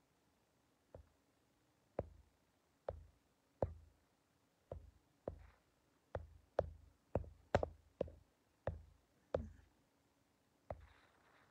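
A series of about fourteen sharp knocks or taps at irregular intervals, coming closest together in the middle, each with a dull thud beneath it.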